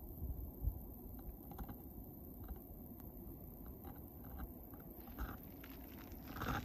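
Handling noise from a phone held in mittened hands while it pans: scattered small clicks and crackles over a low rumble, with a louder crackle near the end.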